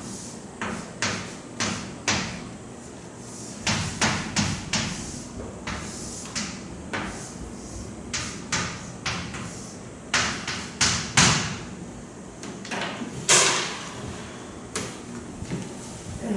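Writing strokes: irregular sharp taps and short scratches of a writing tool on a hard surface, a few a second, with a longer scrape about thirteen seconds in.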